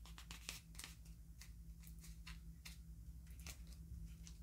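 Faint scattered clicks and crackles of paper being handled and pressed along the edges of a small paper-covered foam box, over a low steady hum.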